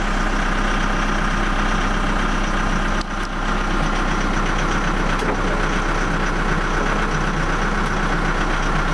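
Case 580N backhoe's four-cylinder diesel engine idling steadily after being started for the day, heard from inside the cab.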